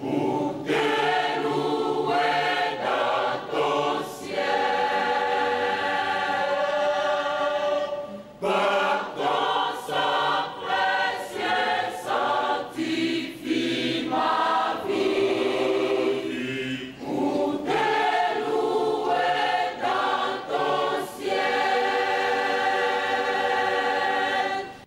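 Church choir singing a hymn together in long held phrases, with short breaks between phrases.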